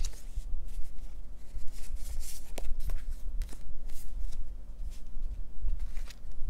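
Paper and sticker sheets being handled at a desk: irregular rustling and crinkling with scattered small clicks and taps.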